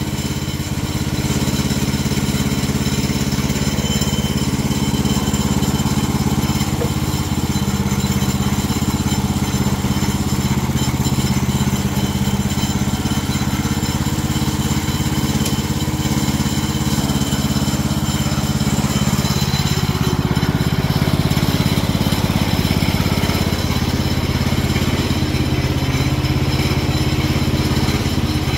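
Petrol engine of a Woodland Mills HM130 band sawmill running steadily at an even speed.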